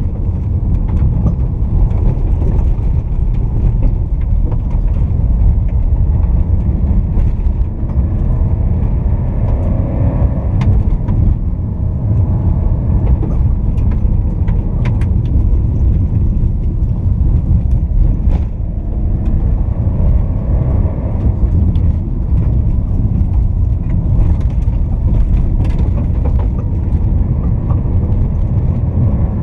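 Fiat Toro Volcano pickup with its 2.0 four-cylinder turbodiesel, heard from inside the cabin as it gathers speed on a dirt road: a steady, heavy low rumble of tyres and running gear on the unpaved surface, with the engine beneath it and occasional sharp ticks.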